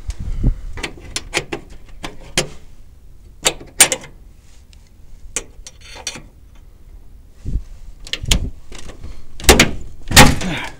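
Footsteps on worn stairs and a run of irregular knocks and clunks, ending in two loud clunks as a door is pulled open.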